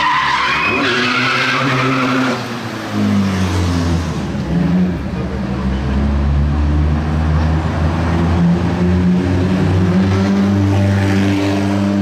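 Tyres squealing for the first two seconds or so. Then a rally car's engine idles and runs at low revs with a deep, steady note that rises and falls a little.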